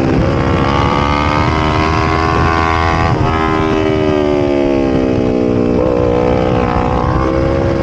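A vehicle engine running steadily under load, with road noise; its pitch sags slowly near the middle and comes back up.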